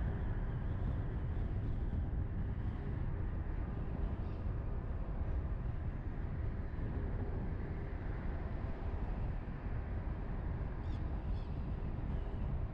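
Steady low rumble of a car driving along a paved road, mostly road and tyre noise.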